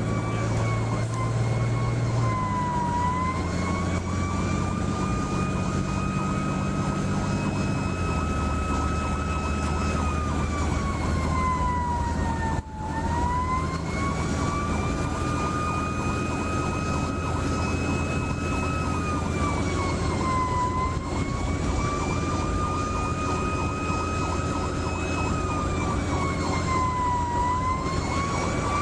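Fire engine's siren on a slow wail, its pitch falling and rising again about every eight seconds, over the steady drone of the truck's engine, which drops in pitch twice in the first eight seconds.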